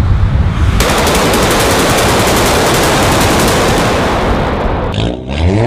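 Car engine and exhaust at full throttle, echoing in a road tunnel, with a rapid rattling crackle like machine-gun fire. It drops briefly near the end, then the revs climb again.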